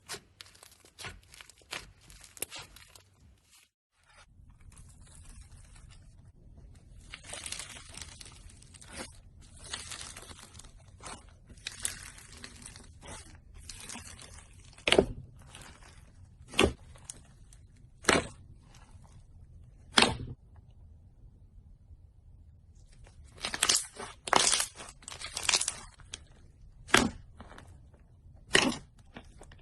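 Slime being worked by hand: stretches of fine crackling, and several loud sharp pops a second or two apart in the second half.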